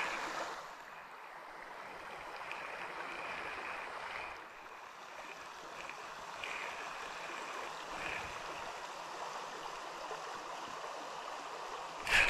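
River water flowing steadily, a constant rushing noise of the current.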